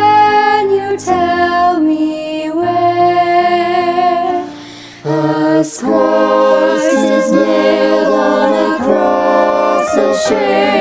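Several voices singing unaccompanied in long held chords. About five seconds in the singing drops away briefly, then comes back fuller, with vibrato.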